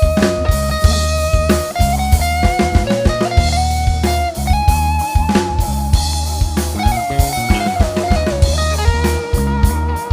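A live band playing an instrumental passage: a lead melody of long held notes that slide and bend between pitches, over a steady drum-kit beat and bass.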